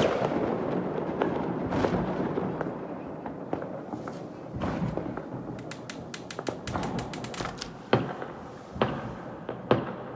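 Fireworks going off: separate bangs that ring out, a fast run of crackling about six seconds in, then a few more bangs near the end.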